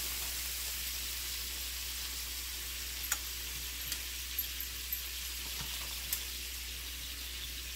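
Marinated chicken and vegetable kabobs sizzling on the hot plates of a George Foreman contact grill, a steady hiss, with a few light clicks in the middle as marinade is spooned over them.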